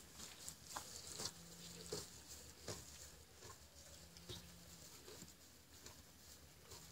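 Near silence broken by faint, scattered rustles and soft ticks of hay as a miniature donkey feeds with its muzzle in the straw.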